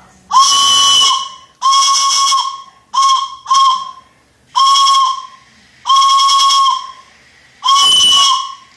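Hand-held train whistle blown by mouth in seven loud blasts, two of them short ones in the middle. Each blast is a single high note with a breathy hiss over it, and its pitch sags slightly as the breath runs out.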